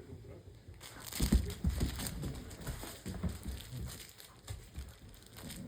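A xoloitzcuintli dog chewing and crunching its food, with uneven crunches starting about a second in.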